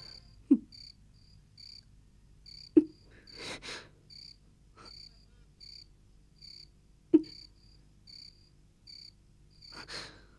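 Night ambience of crickets chirping in short repeated high pulses. Three short, sharp sounds that drop in pitch stand out above them as the loudest events, and two soft breathy bursts come in midway and near the end.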